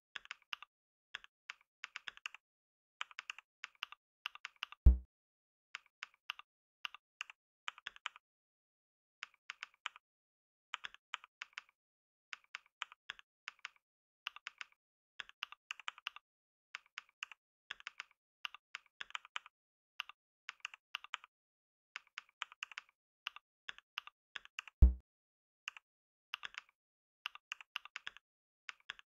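Computer keyboard typing: quick runs of keystroke clicks with brief pauses between them. Two much louder, deep thumps come about twenty seconds apart.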